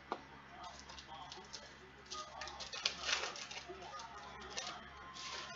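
Baseball cards being handled and flipped through: a sharp click at the start, then a run of short papery rustles and flicks, densest and loudest in the middle.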